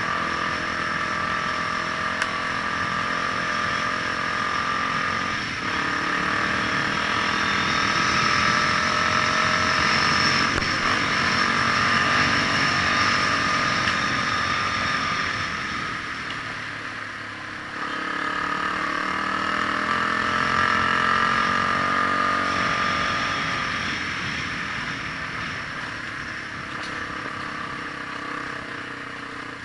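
A vehicle engine running as it drives, building up and easing off in long swells, with a dip about seventeen seconds in and a fade toward the end.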